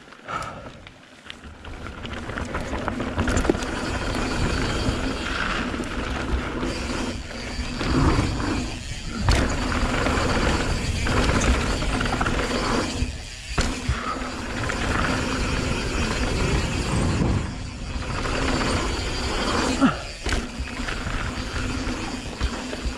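Mountain bike descending a hardpacked dirt trail at speed: continuous tyre roar and clattering of the bike's chain and parts, with wind noise on the camera mic. The noise builds over the first few seconds as the bike picks up speed.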